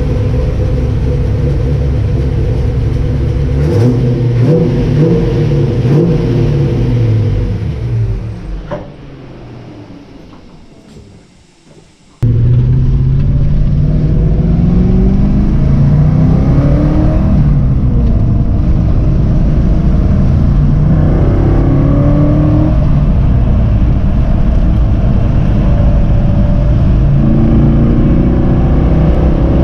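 Holden 308 V8 engine running under load, rising in pitch again and again as it accelerates. About eight seconds in the sound dies away to near quiet, then comes back suddenly and loud.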